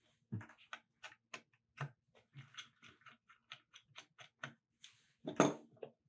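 Small metal clicks and ticks of a number one screwdriver working screws out of a fanless mini PC's metal bottom plate, irregular, a few a second. A louder knock comes about five seconds in.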